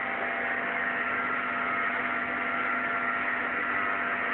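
A steady mechanical hum with several held tones. It does not change in pitch or level.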